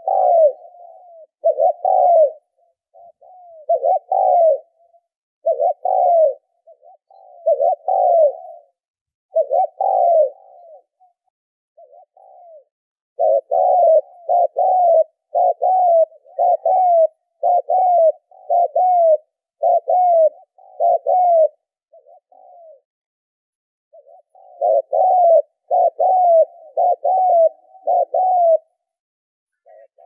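Spotted dove cooing close by: a string of short, low coo phrases, coming in runs and breaking off twice for a couple of seconds.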